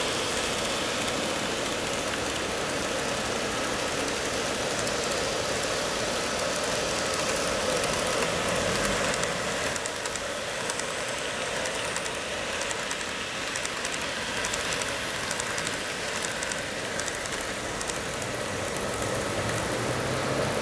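N-gauge model trains running on the layout's track: a steady whir of small motors and wheels on the rails, with light rapid clicking from about halfway through.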